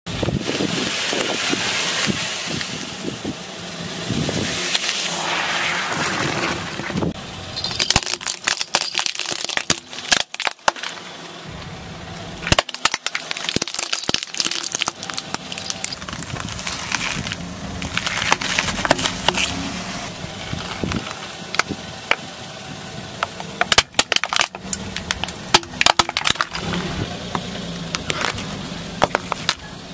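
A car tyre rolls slowly over objects and crushes them. First comes a grainy crunching as floral foam bricks crumble. Then plastic toys snap in a series of sharp cracks, with the car's engine running low underneath.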